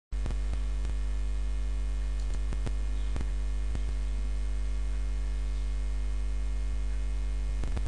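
Steady electrical mains hum with a stack of overtones, with a scattering of faint clicks through it.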